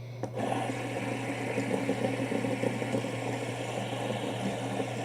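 Fidget spinners spinning, a steady whirring rattle from their ball bearings with light rubbing as they are handled and stacked. It starts just after the start.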